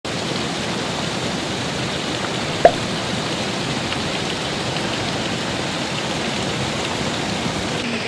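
A small waterfall pouring and splashing over rocks, a steady rush of falling water. A single short, sharp blip cuts through about two and a half seconds in, the loudest moment.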